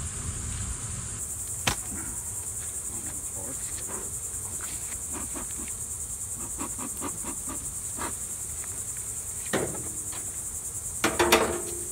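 A steady, high-pitched chorus of insects, with scattered clicks and knocks from hive equipment being handled; the loudest knocks come in a quick cluster near the end.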